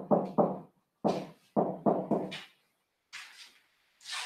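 Marker pen writing on a whiteboard: a quick run of short strokes with a knocking quality against the board, in two clusters over the first couple of seconds. Fainter, hissier scrapes follow near the end.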